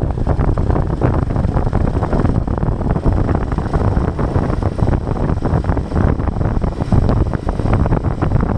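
Royal Enfield Himalayan 450's single-cylinder engine running steadily while the motorcycle is ridden, with wind rushing over the microphone.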